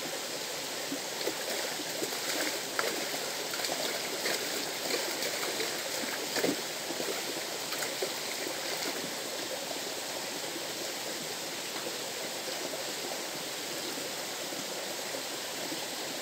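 River water rushing steadily over rocks, with a few light clicks in the first half, the loudest about six and a half seconds in.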